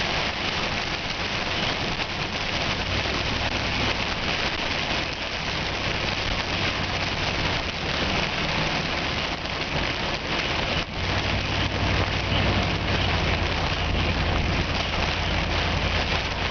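Heavy, wind-driven rain pelting a vehicle with dense rapid pattering, over the low drone of the moving vehicle. The low drone grows louder about eleven seconds in.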